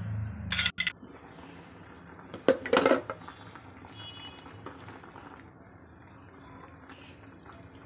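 A steel ladle knocks against a metal cooking pan a few times, loudest about two and a half to three seconds in. Between the knocks, chicken curry simmers in the pan with a faint bubbling.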